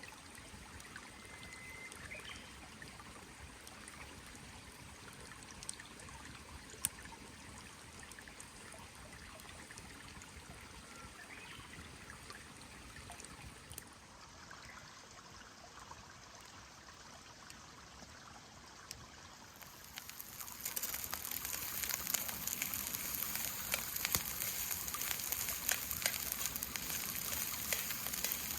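Rain falling, with scattered drops ticking; about 20 seconds in it turns louder, with many more drop ticks.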